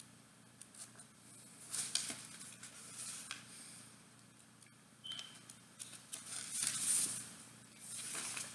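Faint rustling of paper pages being handled and turned, with soft clicks and a few brief swishes.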